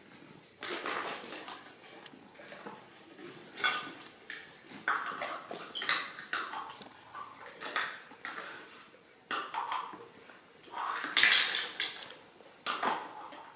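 Plastic toys knocking and clattering irregularly as toy cups, spoons and rings are handled on a tiled floor, with one louder clatter near the end.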